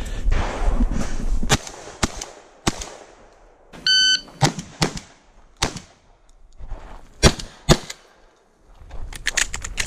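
A shot timer gives one short electronic beep about four seconds in. A string of sharp shotgun blasts follows, the loudest near the end.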